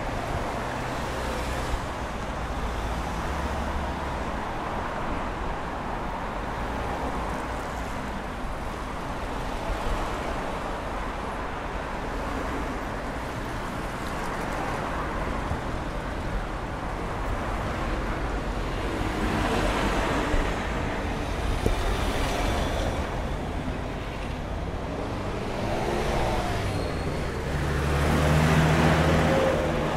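Street traffic: cars, vans and trucks driving past on a busy road, a steady wash of engine and tyre noise with single vehicles swelling in as they pass. The loudest pass comes near the end.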